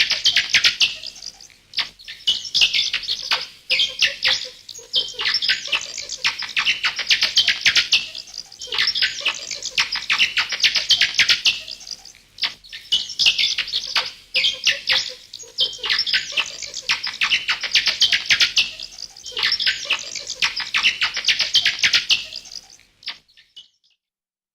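Bats chittering: rapid high-pitched chirps and clicks in bursts of a couple of seconds with short pauses between, stopping shortly before the end.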